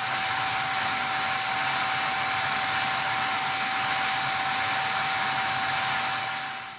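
Vacuum cleaner running steadily, with a high whine, drawing the air out of a vacuum storage bag full of clothes; it switches off near the end.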